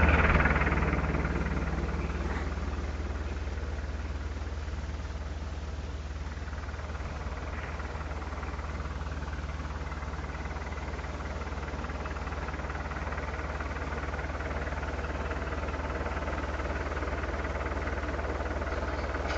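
Fiat Agri tractor's diesel engine, its sound dropping over the first two or three seconds as the revs come down, then idling steadily.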